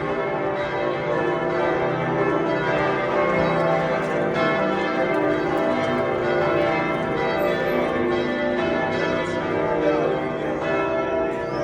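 Bells of Florence Cathedral ringing for Sunday morning service: several bells sounding together in a continuous peal, their tones overlapping without a break.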